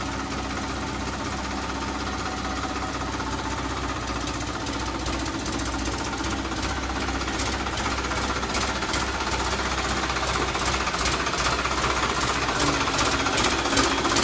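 Tractor diesel engine running steadily with a fast, even knock, gradually getting louder.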